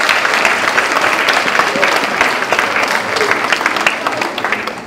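Audience of schoolchildren applauding, fading away near the end.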